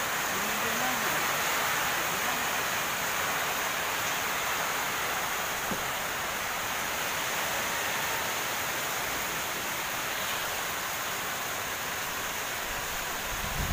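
Steady hiss of typhoon rain and wind. Low thumps of wind on the microphone start right at the end.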